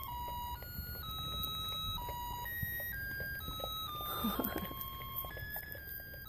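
A small electronic music chip playing a tune in thin, pure beeping tones, one held note after another, stepping up and down in pitch.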